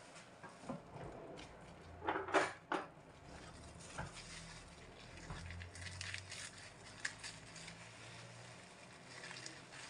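Kitchenware handled at a sink: three sharp clattering knocks about two seconds in, as of a plastic bowl being set down, another knock about four seconds in, then lighter clicks and handling sounds as chicken is worked on a cutting board.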